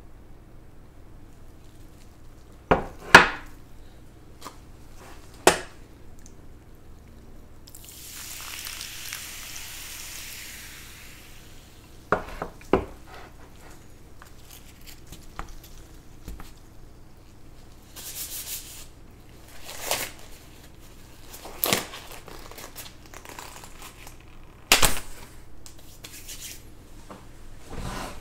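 Dishes and cutlery being handled while food is set out: scattered clinks and knocks, with a few seconds of crinkling packaging about eight seconds in.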